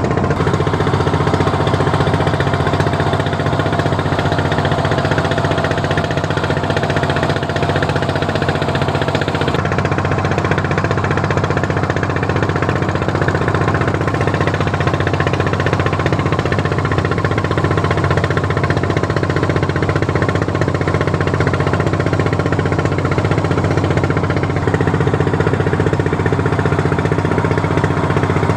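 Fishing boat's engine running steadily at cruising speed, with a fast, even knocking beat.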